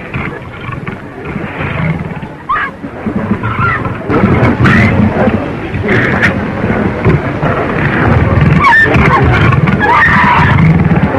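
A big cat snarling and growling during a struggle, getting louder about four seconds in, on a hissy early sound-film track.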